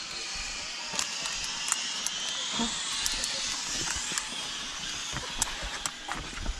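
Zipline trolley pulley running along a steel cable: a hissing whir that rises in pitch over the first few seconds, with scattered sharp clicks.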